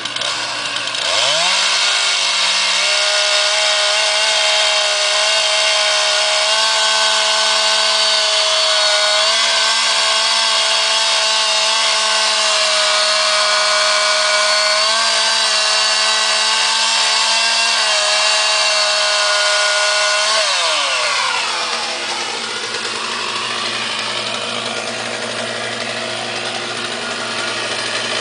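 Two-stroke chainsaw revved up about a second in and held at high throttle for nearly twenty seconds, its pitch wavering a little. It then drops back to a lower speed and revs up again near the end.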